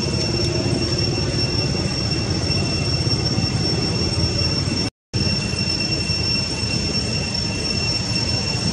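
Steady high-pitched drone of cicadas over a low rumble, cutting out briefly about five seconds in.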